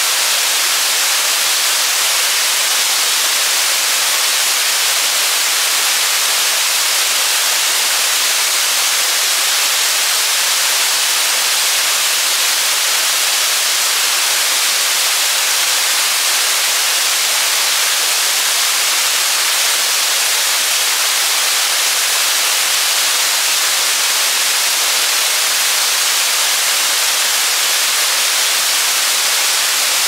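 Waterfall pouring over rock ledges into a shallow pool: a loud, steady, even rushing hiss, bright and with almost no low rumble.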